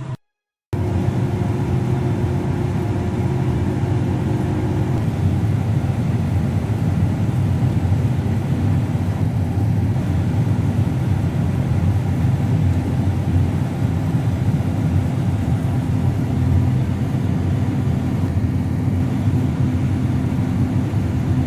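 Steady, loud drone of a harvest machine's engine running at a constant pace, with a low hum. The sound starts after a short silent drop-out right at the beginning.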